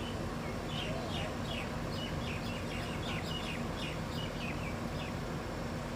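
A small bird chirping in a quick run of short, falling notes, about four a second, from just under a second in until near the end. A steady low engine hum runs underneath.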